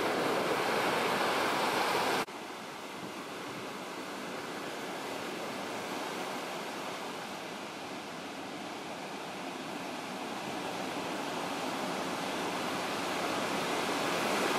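Ocean surf: a steady wash of breaking waves. The level drops suddenly about two seconds in, then slowly builds again.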